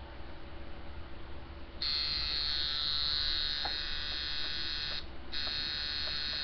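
Coil liner tattoo machine running at 5.5 volts with a steady, high buzz. It starts about two seconds in, stops briefly about three seconds later, and starts again near the end. Its rear spring has been ground back with a Dremel to set the spring tension for lining.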